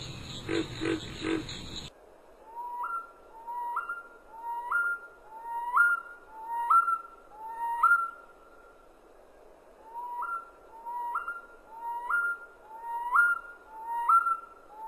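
A bird singing a whistled note that starts low and jumps sharply upward, repeated about once a second in two runs with a short pause between them. For the first two seconds, insects are chirring before the birdsong cuts in.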